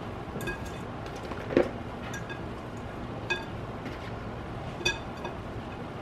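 Three light clinks against a glass mixing bowl, about a second and a half apart, each ringing briefly, as a seasoning shaker is worked over raw quail in the bowl.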